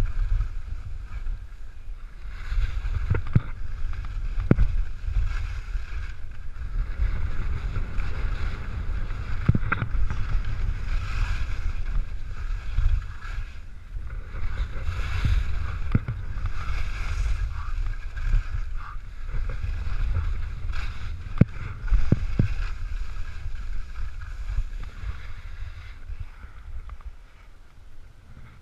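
Skis scraping and chattering over firm, chopped-up snow on a fast downhill run, with heavy wind buffeting on the camera microphone and scattered sharp knocks. The noise dies down over the last few seconds as the skier comes to a stop.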